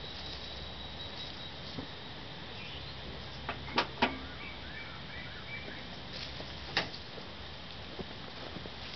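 Quiet outdoor background with two sharp clicks about four seconds in and a single click near seven seconds, with faint high chirps in between.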